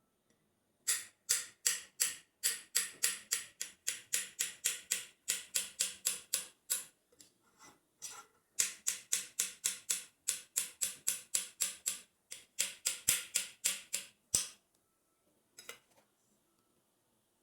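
A utensil beating ingredients in a mixing bowl, clicking against the bowl about four times a second. It goes in two runs of about six seconds each, with a short pause between them.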